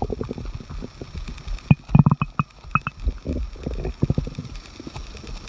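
A stomach growling: an irregular run of gurgles and rumbles, loudest about two seconds in, with a few short high squeaks among them.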